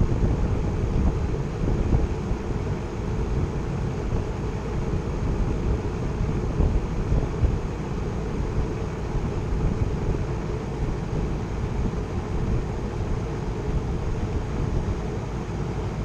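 Heat pump outdoor unit running in heating mode: a steady low rumble from the compressor and outdoor fan.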